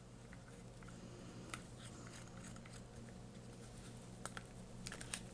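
A few faint, small clicks of the plastic camera grip being handled while its rear button is tried, over a low steady hum.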